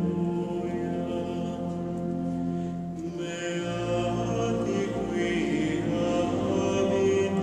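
Choir of Benedictine monks singing chant, slow held notes that move from one pitch to the next.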